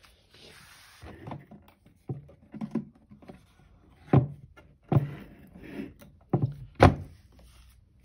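A series of irregular thuds and knocks, about eight in all, the loudest and sharpest in the second half, with a short rustle near the start.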